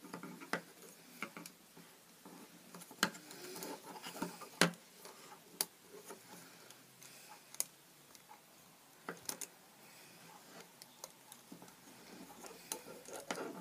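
Wooden pencils and rubber bands being handled and wound together by hand: irregular small clicks and taps over a light rustle, the sharpest a few seconds in.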